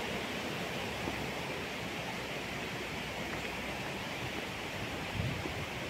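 A steady rushing noise, with a few low rumbling bumps about five seconds in.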